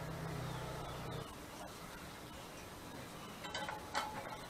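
A low steady hum that stops about a second in, then a few light clicks and a sharp metallic clink near the end as a soldering iron is set into the stand's coiled-spring iron holder.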